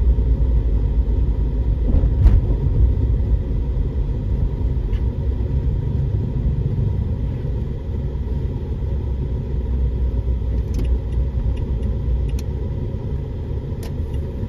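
Steady low rumble of a car's engine and road noise heard from inside the cabin while driving, with a few faint clicks scattered through it.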